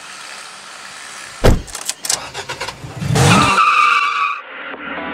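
Car sound effects: a single heavy thump, a quick run of clicks and rattles, then a car engine revving up with a loud rush that stops abruptly. Guitar music starts just before the end.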